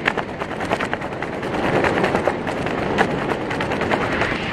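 Wind buffeting the microphone during a parachute descent: a loud, rough rush broken by rapid crackling pops.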